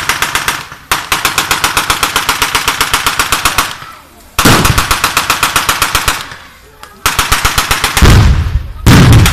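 Machine gun firing blanks in rapid bursts of about seven or eight shots a second, each burst lasting two to three seconds, with short pauses between them.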